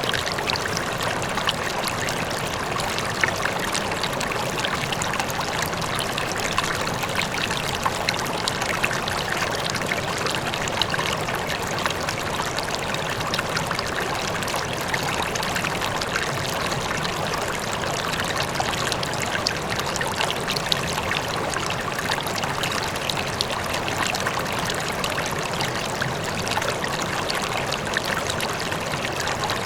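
River water flowing and babbling steadily, with a faint waterfall in the distance.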